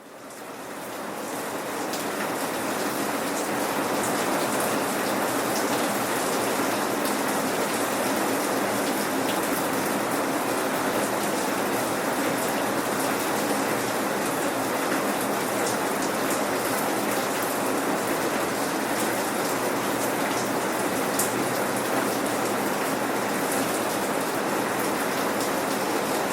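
Steady rain falling, a dense even hiss of drops with scattered distinct drop ticks, fading up over the first few seconds and then holding level.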